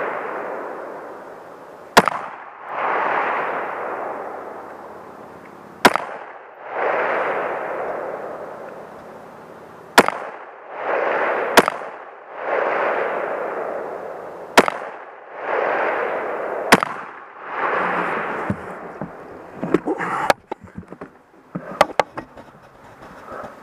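Rifle shots fired singly, a few seconds apart, each followed by a long rolling echo that swells and fades over about three seconds. Toward the end a few smaller, sharper clicks and knocks come close together.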